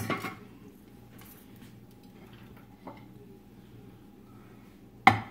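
Quiet kitchen room tone with a faint steady hum, then a single sharp, loud clack of something hard being put down near the end.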